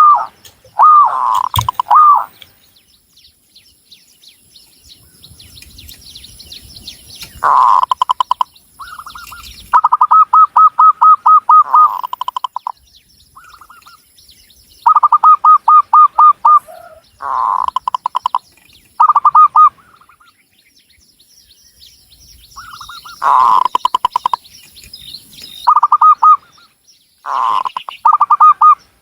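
Zebra dove (perkutut) singing: repeated phrases of rapid, staccato cooing notes, each phrase a second or two long, with pauses between bouts. Fainter high chirps from other small birds sound in the background.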